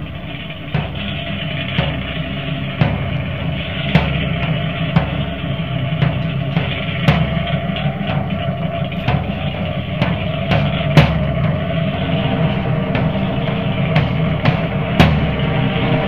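Rock music: a drum kit keeps a steady beat, with a hit about once a second, over held low notes. The level builds a little over the first few seconds.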